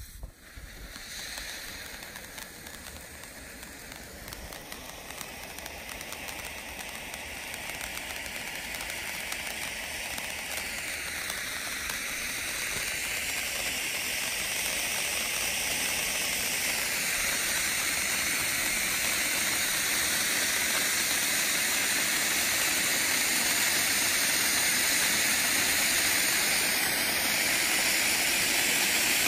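A 12-inch cone fountain firework spraying sparks with a steady hiss. The hiss builds gradually over about the first twenty seconds, then holds steady at full force.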